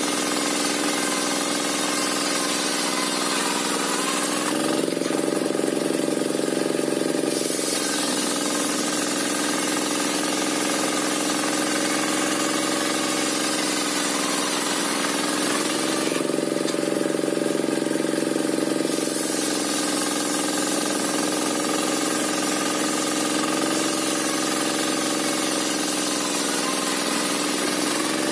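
Engine-driven circular sawmill (serkel) ripping a waru log: a steady engine drone under the hiss of the blade cutting. Twice, about five and sixteen seconds in, the hiss drops away for a few seconds and the engine note rises slightly.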